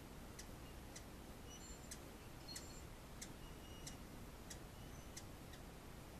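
Faint, sharp chip calls of a small bird, about one or two a second, with a few short high whistled notes among them.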